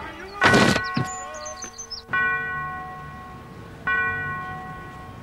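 A loud thunk, then a bell struck twice, under two seconds apart, each stroke ringing out and slowly dying away.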